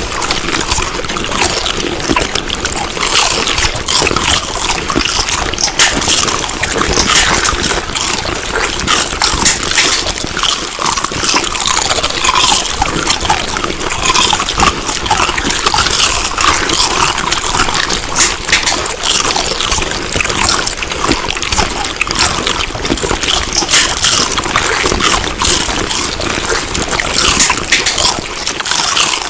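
Close-up chewing of food: a dense, steady run of small clicking mouth noises.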